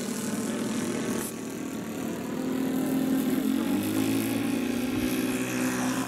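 NGH 38cc single-cylinder two-stroke petrol engine of a radio-control ShockCUB model plane, running in flight and running a little rough. Its pitch shifts and it grows louder about halfway through as the plane flies past.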